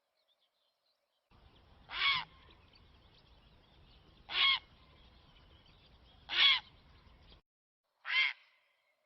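A bird call played as a hunting lure, repeated four times about two seconds apart. Each call is short, with several overtones. A faint hiss under the middle calls cuts in and out abruptly, as in an edited recording.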